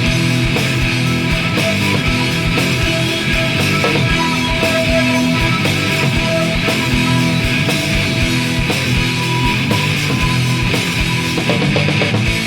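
Instrumental passage of an alternative metal / grunge rock song with no vocals: electric guitars and bass over a steady, regular drum beat.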